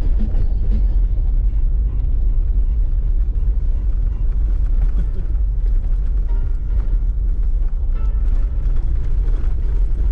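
Steady low rumble of a car driving on an unpaved forest service road, heard from inside the cabin, with small knocks and rattles scattered through it.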